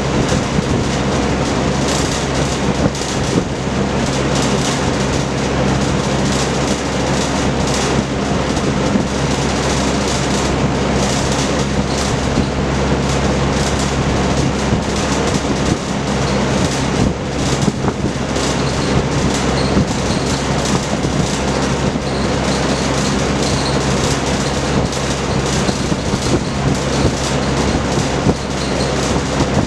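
Vintage Kenmore Roll-A-Matic 20-inch box fan with a four-blade propeller, running steadily: a loud rush of moving air over a low motor hum, with frequent irregular clicks or rattles.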